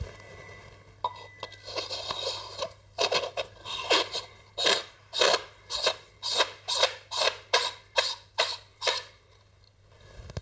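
Threaded metal adapter tube being twisted onto a camera body by hand: soft scraping at first, then a string of short, sharp scrapes about two a second, one with each turn of the wrist, stopping about a second before the end.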